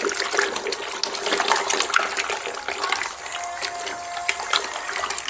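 A hand stirring plaster of Paris into water in a plastic bucket, making wet sloshing with many quick irregular splashes as the slurry is mixed.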